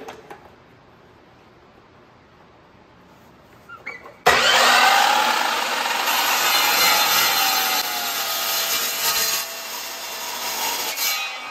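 Evolution metal-cutting chop saw cutting through rectangular steel tube: after about four seconds of quiet it starts suddenly and runs loud for about seven seconds, with a whine under the cutting noise that slowly sinks in pitch as the blade works through the steel, then dies away near the end.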